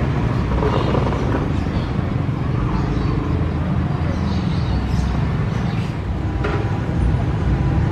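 Diesel locomotive engine running with a steady low drone as the locomotive moves slowly through the station.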